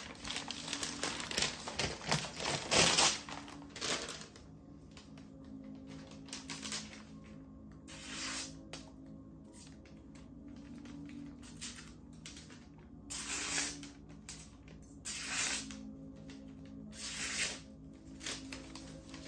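A chef's knife blade making short scraping strokes: a busy cluster of scrapes and knocks in the first few seconds, then single hissy strokes every couple of seconds near the end.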